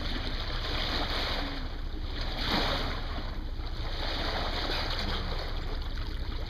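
Water rushing past the bow of a moving boat over a steady low rumble, with a brief louder swell of splashing about two and a half seconds in.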